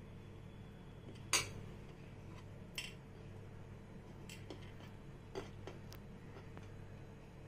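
A few short clinks of kitchen utensils, the loudest about a second in and another near three seconds, with lighter taps later, over a low steady hum.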